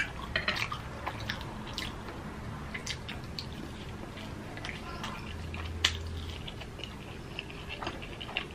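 A person biting into and chewing fried chicken, close up, with many small scattered mouth clicks and one sharper click a little before six seconds in.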